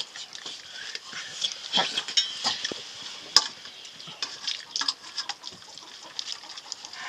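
Light, scattered clinks and scrapes of metal dishes being handled, with one sharp clink about three and a half seconds in.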